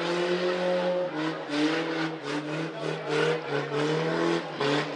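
Tough truck's engine revving hard in repeated throttle bursts, its pitch climbing and dropping several times.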